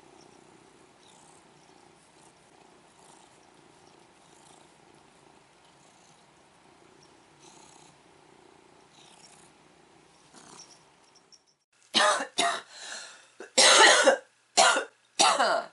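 A faint low hum, then about eleven seconds in a woman coughs hard about five times in a row, the cough of a head cold.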